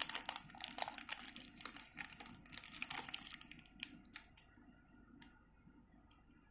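Crinkling and rustling of a small clear plastic bag and paper as they are handled. It is a dense run of small crackles for about three and a half seconds, then only a few scattered clicks.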